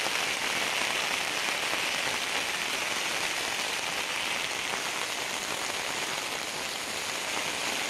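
Steady rain falling on wet ground and puddles: a continuous, even hiss with no breaks.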